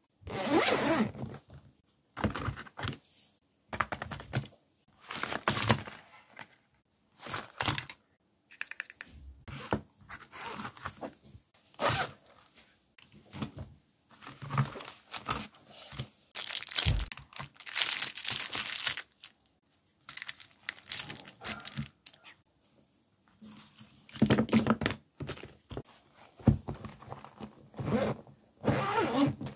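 Zipper of a hard-shell pencil case being pulled open and closed, between bouts of handling the pencils and other things inside. The sound comes as a string of short scraping bursts with brief pauses between them.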